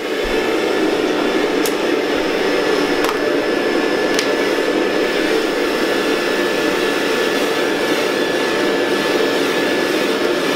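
Vacuum cleaner running steadily, drawing air through its hose and metal extension wand. A thin, high whistle joins a couple of seconds in.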